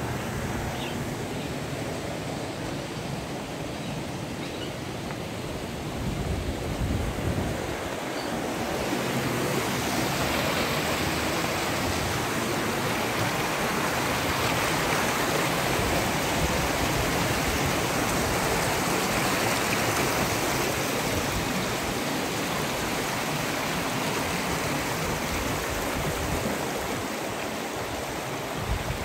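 Small mountain stream splashing down a narrow rocky channel: a steady rush of water that swells about nine seconds in and eases again near the end.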